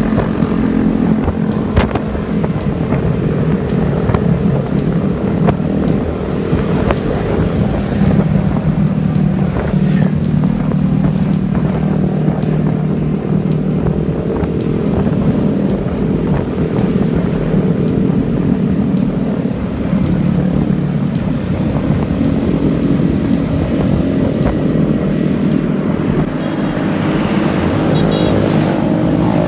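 Motor scooters running steadily at cruising speed, with engine hum that rises and falls slightly in pitch over road and wind noise. Near the end, scooters ride past.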